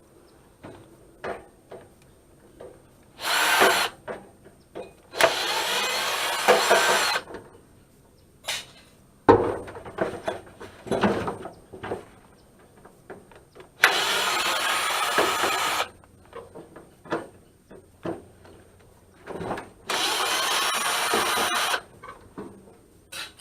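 Ryobi cordless power screwdriver with a Phillips tip running in four spells of about two seconds each as it backs screws out of a dehumidifier's metal casing. Sharp clicks and knocks come between the spells.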